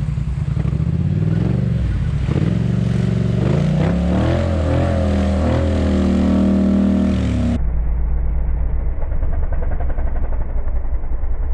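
ATV engine running and revving, its pitch rising and falling as the throttle is worked. About three-quarters of the way through it turns suddenly muffled and dull, leaving a steady low engine drone.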